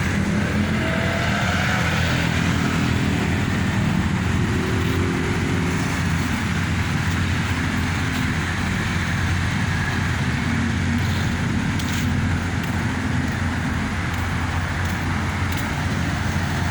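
Steady low rumble of motor-vehicle noise, unchanging throughout, with a few faint brief tones in the first couple of seconds.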